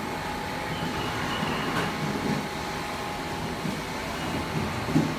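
Six-nozzle liquid filling machine for 25-litre jerrycans running, a steady mechanical hum with a constant whine through it.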